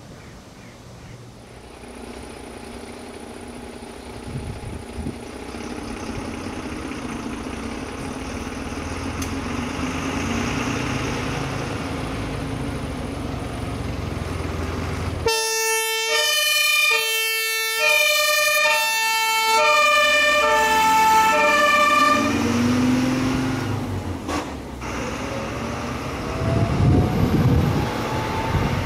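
German fire engine approaching with its engine growing louder, then its two-tone Martinhorn siren sounds for about seven seconds halfway through, alternating between two pitches that sink slightly as it passes. Engine and road noise continue after the siren stops.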